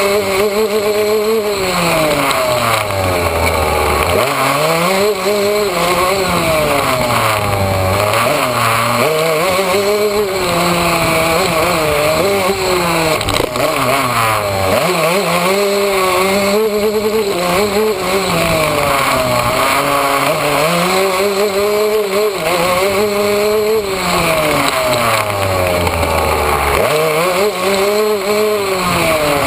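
Yamaha YZ125 dirt bike's 125 cc two-stroke single engine under way, its pitch climbing and dropping every few seconds as the throttle is opened and closed along the track.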